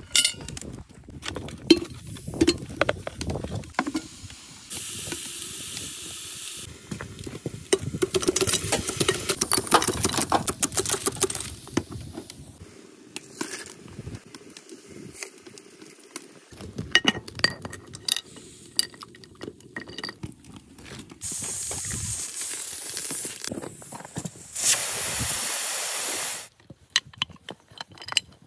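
Meat cooking in an Afghan kazan, a cast-aluminium pressure pot on a wood stove. Many clanks and knocks of the metal pot and lid come with sizzling and several stretches of steady hiss, each lasting one to two seconds. The loudest hiss comes near the end.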